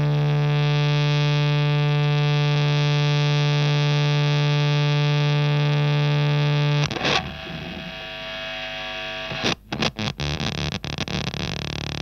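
Electric guitar through a Tonebender MkII clone fuzz pedal with an overdrive pedal in front, on an 8-bit fuzz setting with near-endless sustain. One fuzzed note holds steadily for about seven seconds. A new note is struck and the tone turns ragged, and near the end it sputters, cutting in and out.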